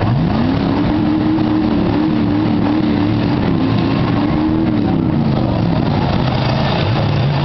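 Demolition derby car's V8 engine revving up just after the start, held high and wavering for about four seconds, then dropping back toward idle. Other engines run low underneath.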